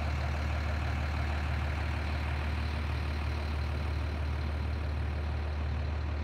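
Truck engine idling steadily, a constant low hum with no change in speed.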